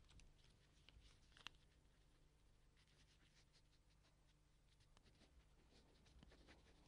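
Faint scratching of a pen writing on a small paper notepad, with one sharper click about a second and a half in.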